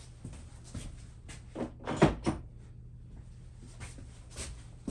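Several irregular knocks and clunks of metal engine parts being handled, the loudest pair about two seconds in, as a front top-end component comes off a Harley-Davidson Sportster Evolution engine.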